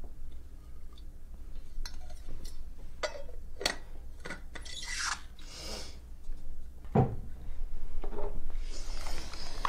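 Close rubbing and rustling, as of someone moving in bed against the bedding, with scattered small clicks and two longer stretches of louder hissy rustle, one midway and one near the end.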